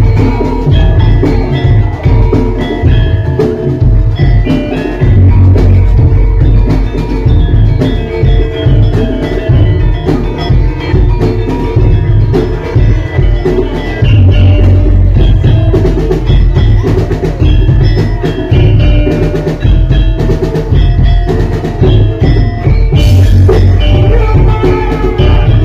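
Live gamelan music for Lengger dance: struck metallophones ringing out the melody over steady drumming, with a cymbal-like crash near the end.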